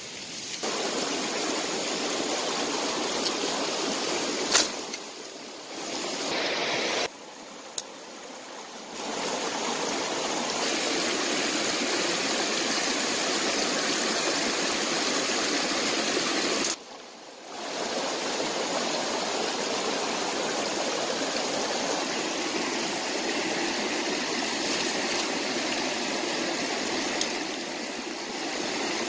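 Shallow rocky stream rushing over stones: a steady watery hiss that drops away briefly a few times.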